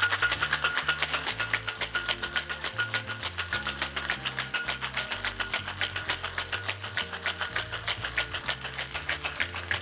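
Ice rattling in metal cocktail shaker tins, shaken hard in a fast, even rhythm of about seven strokes a second: a sour being shaken with ice to chill and dilute it.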